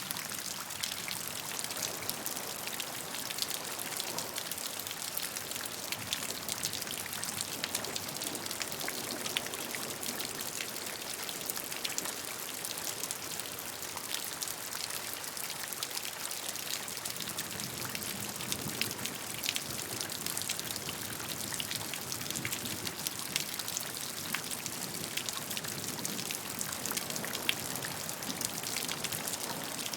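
Steady rainfall, many small drops tapping on a surface in a dense, even patter, with no let-up or change.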